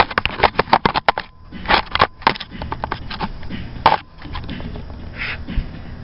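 A quick run of sharp clicks and knocks, then a few louder single knocks over the next few seconds, from a hand-held camera being handled and set down on a concrete floor.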